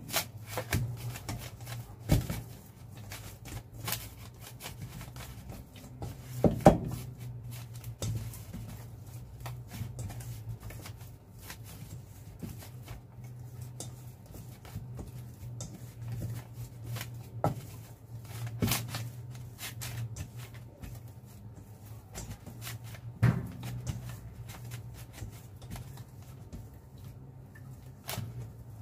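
Milk bread dough being kneaded by hand in a stainless steel bowl: irregular soft rubbing and slapping, with now and then a louder knock of hand or dough against the metal bowl, over a steady low hum.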